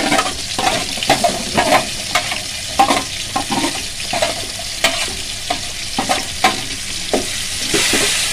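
Chopped onions, tomatoes, green chillies and carrots frying in hot oil in a metal pan, sizzling steadily. A spatula stirs them, scraping and knocking against the pan about twice a second. Near the end the sizzle grows louder.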